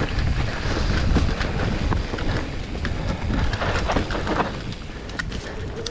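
Mountain bike riding down a dirt singletrack covered in leaves: tyres rolling over dirt, leaves and twigs, with rattling and clicking from the bike over the bumps, over a steady low rumble. It eases a little near the end.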